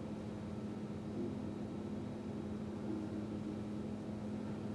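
Distant excavator's diesel engine running steadily, a low even hum.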